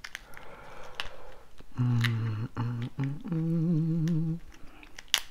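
A man humming a few low held notes with his mouth closed, starting about two seconds in, the last note wavering. Sharp cracks and clicks of a cooked lobster tail's shell being pulled apart by hand, the loudest near the end.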